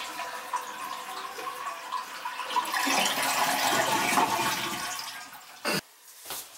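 Toilet being flushed with the water supply shut off, to drain the tank: a rush of water that swells about three seconds in and dies away, with no refill following. Two short knocks come near the end.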